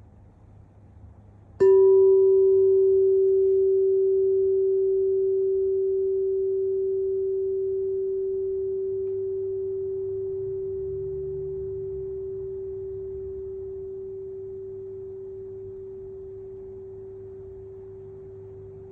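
A single struck metal tone, sounded once about a second and a half in, ringing on at one steady pitch and fading slowly. A higher overtone dies away within about a second and a half, leaving an almost pure tone.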